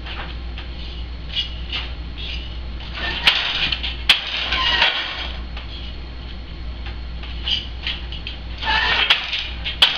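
Hand weaving on a wooden countermarch loom: boat shuttles sliding across the warp in rustling swishes about three and nine seconds in, with sharp wooden knocks as the shuttle is caught and the beater comes against the cloth. A steady low hum underlies it all.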